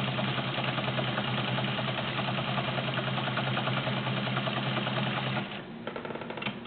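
Vintage all-metal Penncrest model 5000 sewing machine sewing a zigzag stitch: the motor runs steadily with a fast, even ticking of the needle mechanism, then stops about five and a half seconds in, followed by a few light clicks.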